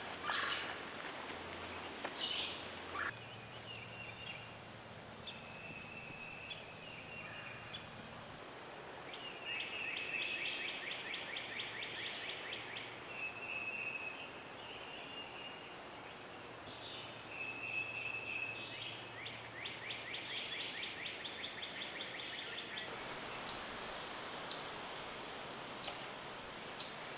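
Songbirds singing: two fast trills of quick repeated high notes, each a couple of seconds long, among scattered shorter whistled notes.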